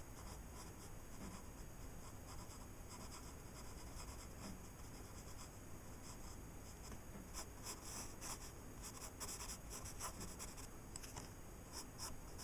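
Pencil scratching on paper in quick, short sketching strokes, faint at first and busier over the second half.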